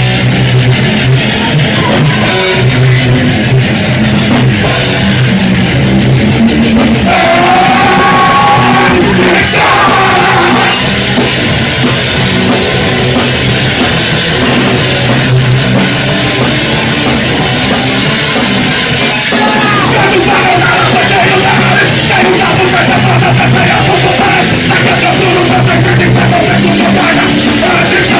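Punk rock band playing live and loud: distorted electric guitar, bass and a drum kit driving a fast song, with vocals over it.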